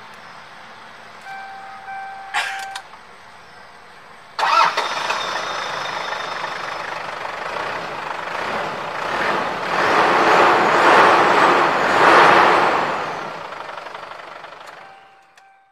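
Two short electronic beeps, then a car engine starting suddenly about four seconds in and running, growing louder before fading away near the end.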